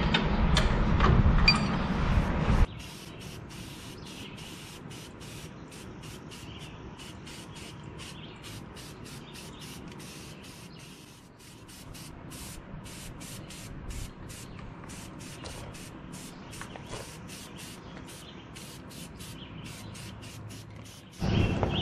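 Aerosol spray-paint can hissing in many short, quick bursts as a tractor top link is painted. A louder stretch of noise fills the first couple of seconds before it.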